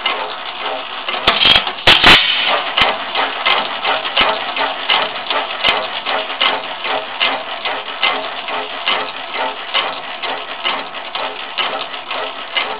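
Ingeco stationary gas engine running, with a steady mechanical clatter of clicks and snaps, roughly two a second, from its magneto trip and valve gear. A few louder snaps come about a second and a half to two seconds in.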